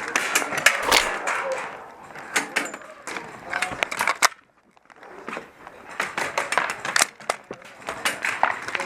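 Scattered sharp cracks of gas blowback airsoft rifle fire, irregular shots from several guns, with a brief near-silent gap about four and a half seconds in.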